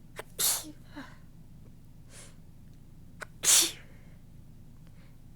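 A woman sneezing twice, about three seconds apart; each sneeze is short.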